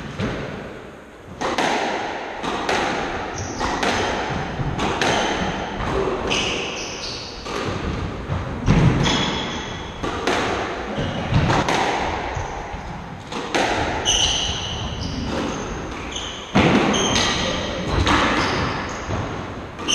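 Squash rally: a squash ball cracked by rackets and smacking off the court walls, a sharp hit every second or so, each echoing in the enclosed court, starting about a second and a half in. Short high squeaks of shoes on the wooden floor come between the hits.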